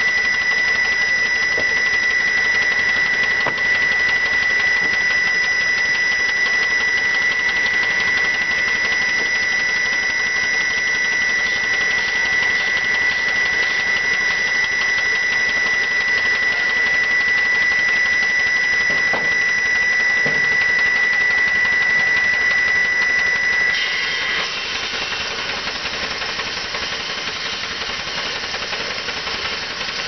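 Small vertical steam engine running a sawmill, with a steady hiss of steam and a steady high whine that cuts off about 24 seconds in, after which the sound drops a little.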